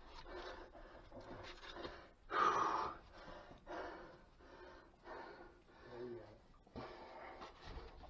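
A person breathing hard and panting from the exertion of squeezing through a tight cave crawl, one strained breath after another, the loudest about two and a half seconds in.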